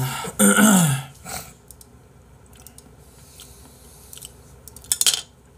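A man lets out a loud, breathy groan that falls in pitch at the start, followed by a few light clicks and a short breathy burst near the end.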